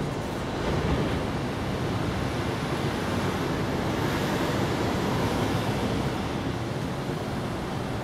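Steady outdoor background rush with no distinct events, swelling slightly about a second in and easing near the end.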